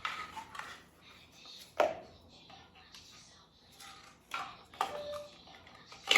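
A few sharp knocks and clicks, a second or more apart, as parts of an artificial Christmas tree are handled and fitted into its stand.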